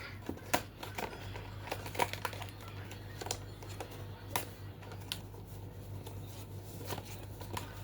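Scattered light clicks and taps, irregularly spaced, from hands handling a small blind-box toy and its packaging, over a faint steady hum.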